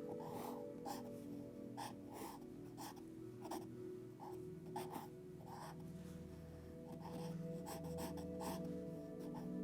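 Sketching strokes scratching on paper, short and irregular, about one to two a second, over soft background music of sustained chords.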